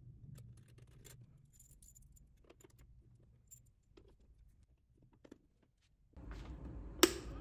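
Metal circular multi-pin connectors being pushed into their panel sockets and screwed on: faint metallic clicks, ticks and rattles. A steady low hum comes in about six seconds in, and one sharp, louder click follows about a second later.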